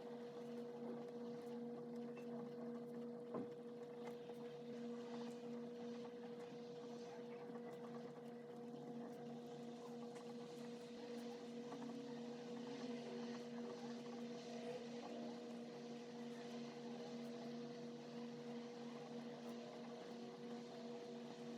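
Steady low electrical hum, with faint, irregular scratching of a pen writing on paper and one small tap about three seconds in.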